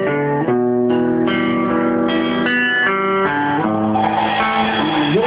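Amplified electric guitar playing a melody of held single notes, changing pitch every half second to a second.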